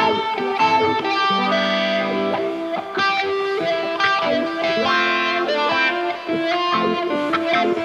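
Background music: a guitar instrumental with changing plucked notes and chords, no singing.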